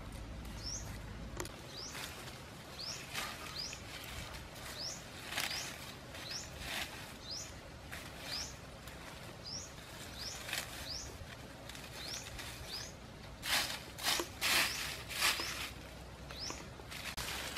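A bird repeats a short, high, rising chirp over and over, a little faster than once a second. Under it dry leaves and twigs crackle and rustle as they are handled, loudest in a cluster a little past the middle.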